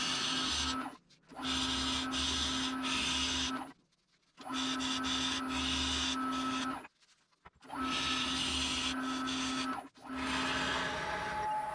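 A wood lathe runs with a steady hum while a tool or abrasive rubs against the spinning walnut-and-epoxy bowl blank, giving a hissing, scraping sound. It comes in four stretches of about three seconds, each cut off suddenly.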